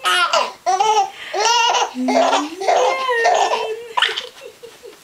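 Infant laughing in a run of short, high-pitched bursts while being tickled.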